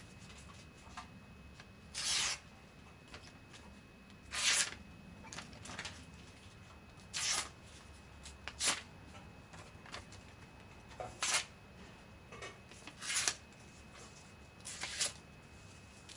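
Voltron V05 folding knife's 9Cr18MoV steel blade slicing through paper: about seven short rasping cuts a second or two apart, with lighter rustles of paper between them.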